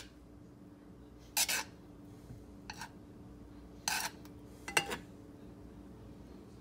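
Frying pan with butter melting on a glass-top electric stove: four short crackles, the last with a brief metallic clink, over a faint steady hum.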